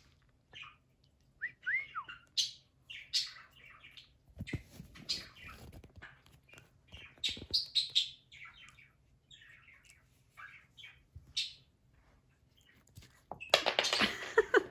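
Pet budgie chirping and chattering in short, irregular high chirps, with a few sliding whistled notes. A louder, noisier burst comes near the end.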